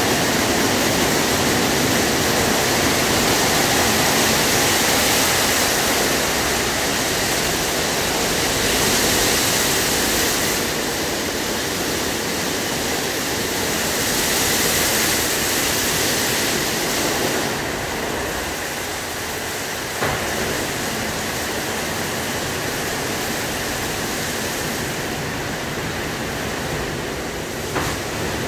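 WashTec SoftCare2 Pro rollover car wash at work, its spinning cloth brushes and water spray making a steady rushing wash noise against the car. The noise eases a little past the halfway point, with a light knock about two-thirds through and another near the end.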